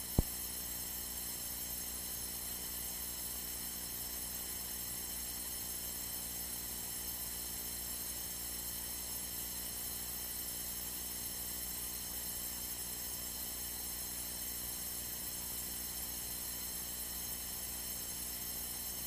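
Steady electrical hum and hiss on the cockpit intercom and radio audio feed, unchanging throughout, with one brief click just after the start.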